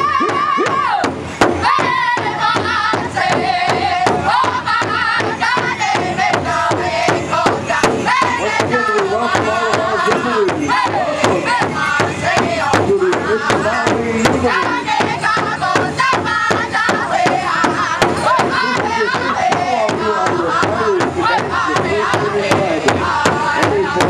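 Youth powwow drum group singing together around a large powwow drum while beating a steady pulse on it with drumsticks. The high voices sing phrases that fall in pitch.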